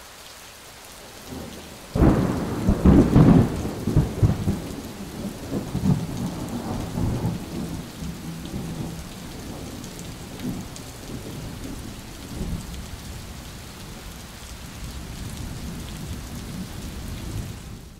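Steady rain with a sudden loud thunderclap about two seconds in, rumbling on and slowly dying away over several seconds while the rain keeps falling.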